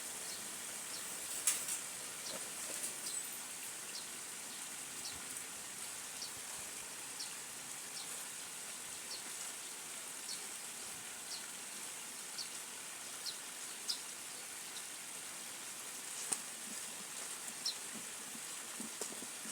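Outdoor ambience: a steady high hiss with short, high chirps repeating roughly once a second, and a few sharp clicks.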